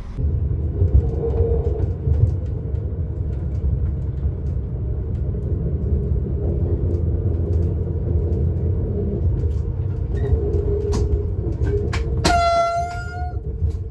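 Train running, heard from inside the driver's cab: a steady low rumble with scattered clicks. Near the end the train's horn gives one warning blast of about a second.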